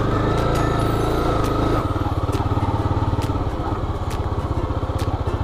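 Honda CB300R's single-cylinder engine running as the motorcycle rides along a dirt road. The steady engine note turns into a fast, even pulsing about two seconds in, with a few faint clicks over it.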